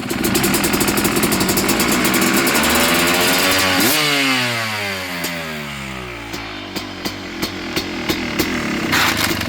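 Two-stroke dirt bike engine with an aftermarket expansion-chamber exhaust, revved up and held high for about four seconds. The revs then fall away and it settles back to a rough idle, with a series of sharp pops near the end.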